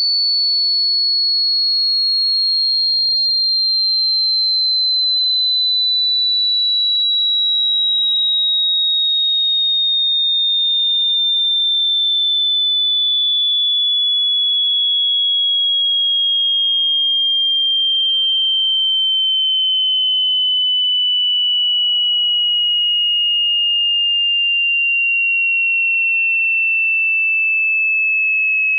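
Electronic sine-wave test tone of a high-to-low hearing-test sweep: a single pure high tone falling slowly and steadily in pitch at an even loudness.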